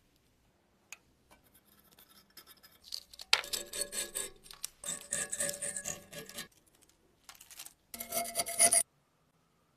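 Thin steel palette knife scraping and prying flaky rust scale off a heavily rusted axe head, in several stretches of scraping. The scraping stops shortly before the end.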